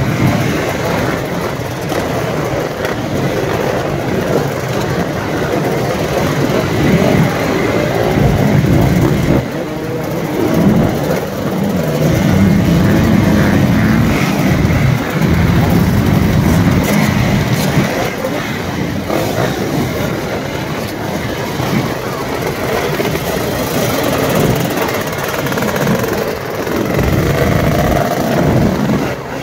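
A pack of motocross bikes running together, engines idling and revving up and down in overlapping waves as the riders pull away in turn.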